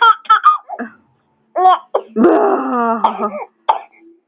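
A small child laughing hard and breaking into coughs: short sharp coughs interrupt stretches of voiced laughter, the sign of a child who has laughed until he chokes.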